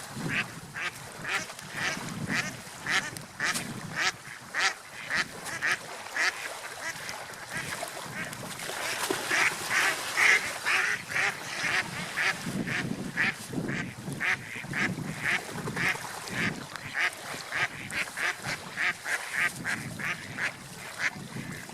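Ducks quacking over and over in short calls, about two a second, thickest and loudest around the middle.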